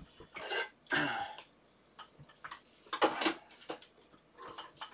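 Handling sounds: a series of short rustles, clicks and knocks as items are picked up and moved about, the loudest about three seconds in.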